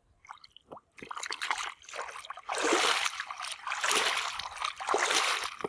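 Water splashing and trickling over a toy vehicle as it is washed, coming in uneven spells after a near-silent first second.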